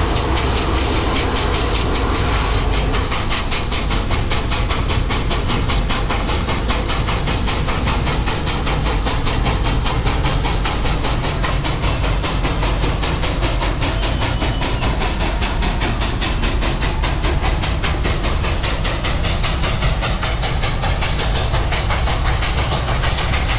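Baldwin 2-8-2 steam locomotive working past, with steam hissing from its boiler blowdown, followed by the passenger coaches rolling by on the rails.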